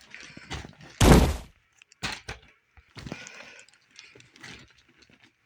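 A loud, sudden crash-like hit about a second in, lasting about half a second, followed by a few faint knocks and clicks.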